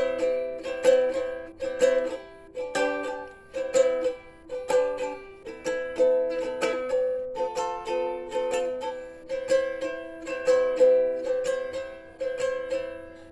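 Solo ukulele playing the closing chords of a song, strummed about twice a second, with the last chord left to ring and fade away near the end.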